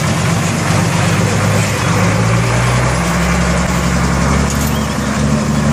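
Heavy truck engine running as the truck wades through a muddy river, its pitch stepping up a little a couple of times, over a steady rush of churning water.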